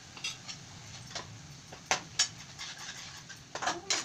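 Steel ladle and spoon scraping and clinking against a frying pan while stirring a thick onion-tomato masala: irregular clinks and scrapes, the sharpest twice around two seconds in and again near the end.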